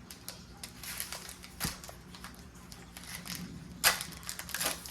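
Foil Pokémon booster pack crinkling as it is worked open, with light clicks and rustles of cards being handled; two louder rustles come near the end.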